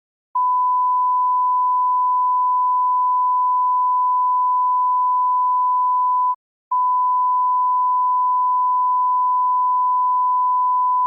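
Electronic broadcast tone: one pure, steady, high-pitched note that breaks off for a moment about six seconds in and then resumes at the same pitch.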